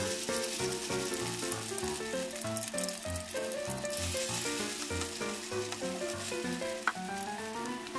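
Shallow cooking oil sizzling and crackling in a frying pan as a fritter of tiny fish batter fries, under background music with a melody and a rhythmic bass line. A single sharp click comes about seven seconds in.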